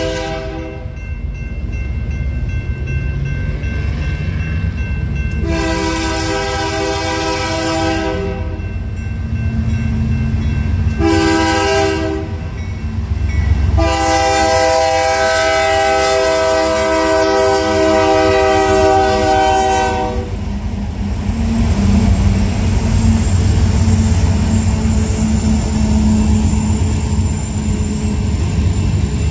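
Union Pacific freight locomotive's multi-tone air horn sounding the grade-crossing signal: the tail of one blast, then a long blast, a short one and a final long one of about six seconds. After the horn stops the diesel locomotives rumble past the crossing, growing louder near the end.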